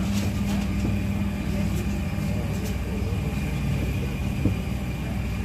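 Z20500 double-deck electric commuter train running, heard from inside the carriage: a steady low rumble with a hum that drops out about two seconds in, a few light rattles, and a single knock late on.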